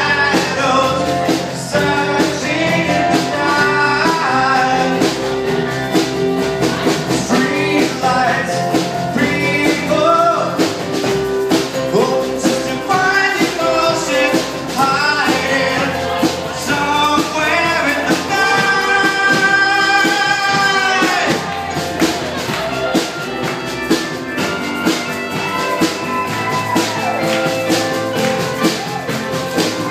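Live rock band playing a song with a singer over a steady drum beat.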